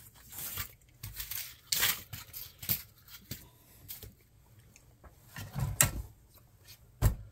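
Handling noise on a workbench: small component trays holding transistors are picked up and moved, and a wooden cigar box and its lid are shifted on a cutting mat. It comes as an irregular series of knocks, clacks and scrapes, the loudest about two seconds in and about six seconds in.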